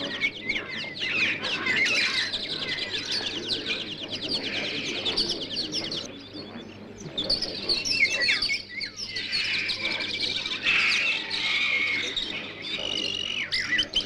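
Several birds chirping and trilling at once, a busy chorus of quick repeated notes that thins briefly about six seconds in.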